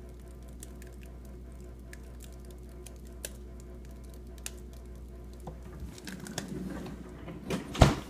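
LG LFX31925ST French-door refrigerator running with a steady low hum and scattered, irregular faint clicks, the noise its owner calls bad and cannot explain, with the ice maker switched off. Near the end, rustling and a sharp thump, the loudest sound.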